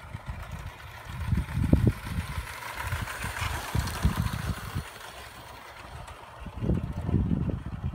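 Live-steam model of an LNER A4 Pacific, 60024 'Kingfisher', running past on its track: a hissing rumble that swells as it draws close, about midway, then fades. Gusts of wind buffet the microphone throughout.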